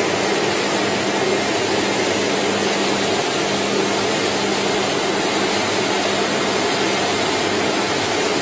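Steady machinery noise from a banana chip frying production line: the conveyor fryer's outfeed, a vibrating de-oiling screen and air-cooling fans running together as a continuous even rush with a steady hum underneath.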